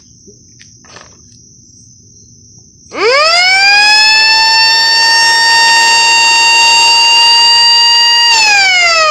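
A siren sounds loudly about three seconds in. It winds up quickly in pitch to a single steady tone, holds it for about four seconds, then winds down with falling pitch near the end.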